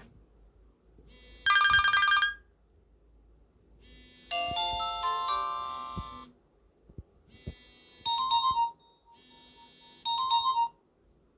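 Nokia 3310 ringtones and alert tones, several short electronic tunes played one after another with pauses between: a fast trill about a second and a half in, a longer chiming phrase around five seconds, then two brief beeping tones near the end.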